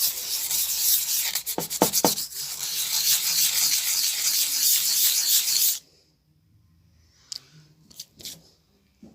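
Abrasive rubbing on an axe under repair, a continuous rasping that runs for about six seconds with a few knocks near two seconds in, then stops; a few light clicks follow.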